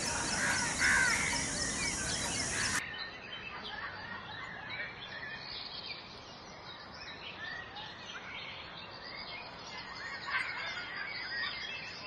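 Small birds chirping and singing in the background, many short rising and falling calls over outdoor ambience. About three seconds in the sound cuts abruptly to a quieter recording, where the chirping carries on.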